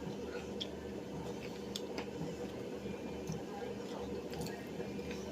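Scattered small clicks and soft squishy mouth noises of someone eating, over a steady low hum.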